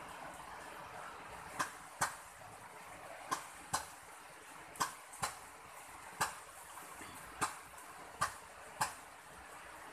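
Rainwater dripping, landing in about ten sharp, irregular taps over a faint steady hiss of light rain.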